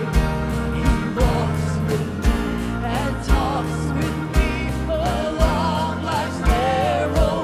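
Live gospel band playing: organ, piano, guitars, bass and drums with a beat about once a second, under a man and a woman singing a melody with vibrato.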